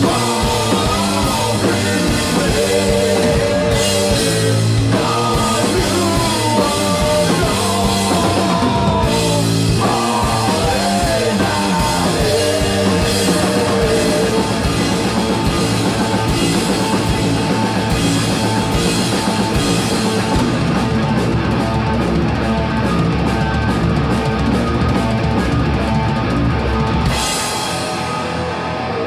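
Rock band playing live: electric guitar through Marshall amps and a drum kit, with a sung vocal over the first part. Near the end the drums stop and the guitar plays on alone.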